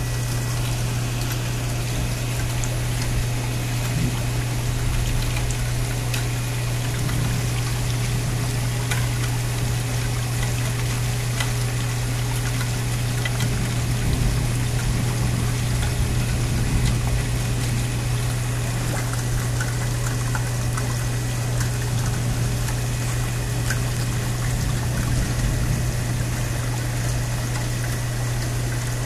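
Steady thunderstorm rain pouring, with water trickling and running off, over a constant low hum.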